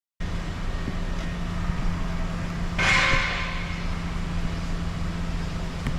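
A steady low machine hum, with a short burst of hiss about three seconds in that fades quickly.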